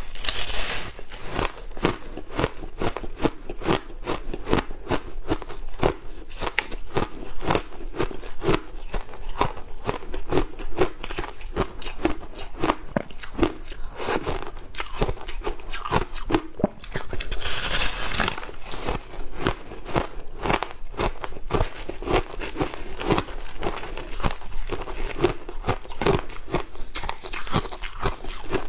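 Frozen matcha ice being bitten and crunched between the teeth close to the microphone: a continuous run of sharp crunches and cracks, with two harder bites, one at the start and one about two-thirds of the way through.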